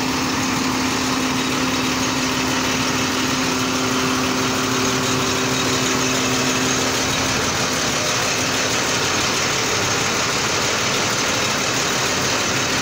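Zoomlion truck crane's diesel engine running steadily at idle, with a steady hum over it that stops about seven seconds in.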